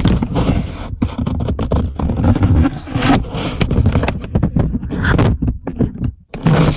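Microphone handling noise: loud scraping, rubbing and bumping, with many knocks, as the recording device is picked up and moved. It stops abruptly near the end.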